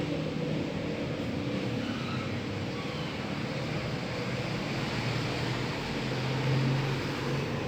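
A dog snoring: a low, rough rumble.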